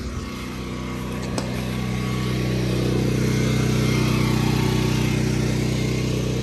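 Westinghouse WGen9500 portable generator's single-cylinder engine running steadily under light load, before the AC compressor kicks in. It gets louder over the first few seconds, then holds steady.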